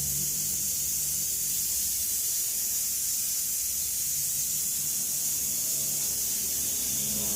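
Steady high-pitched sizzling hiss of food cooking in a hot pan.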